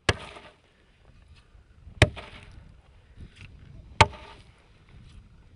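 Three sharp strikes of a hand tool on coal, about two seconds apart, each followed by a brief clatter.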